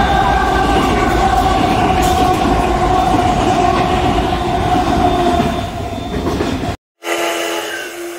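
Two SSR diesel locomotives hauling an empty coal train past at close range: a loud, steady engine note with a whine over rumbling wheels on the rails. It cuts off suddenly near the end, giving way to a quieter steady hum.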